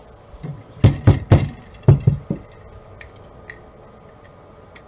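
White rubber mallet tapping a 3D-printed plastic barrel section to seat a stiff-fitting part: about six short taps in two groups of three, around one and two seconds in, followed by a few light clicks.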